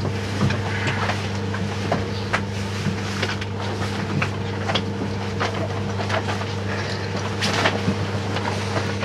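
Inside a 583-series train car: a steady low hum with scattered clicks and knocks over it.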